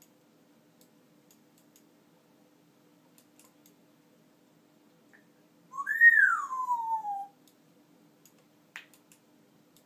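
African grey parrot giving a single whistle about six seconds in, rising briefly and then gliding down in pitch. Before and after it there are only a few faint clicks and ticks.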